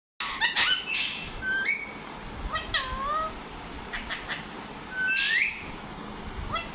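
Pet parrot making a series of squawks and whistled calls, several of them sliding up or down in pitch, with quick clicking notes between them.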